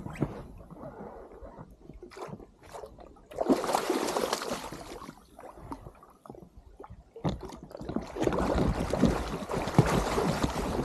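A halibut thrashing at the surface beside an inflatable dinghy, splashing water as it is netted. The splashing comes in two spells: a short one about three seconds in and a longer one from about seven seconds in.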